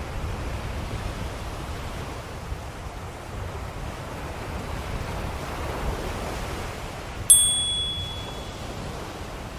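Ocean waves washing steadily, with a small high-pitched bell struck once about seven seconds in and ringing out over a second or so: the interval bell that marks each two-minute stage of a reiki session.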